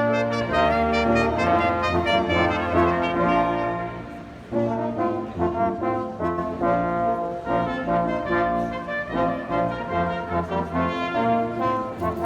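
Music played by brass instruments in held chords that change every second or so, briefly dropping away about four seconds in.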